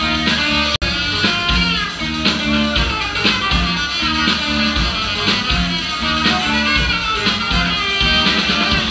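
A live band playing, with guitar prominent over a steady low beat. The sound cuts out for an instant about a second in.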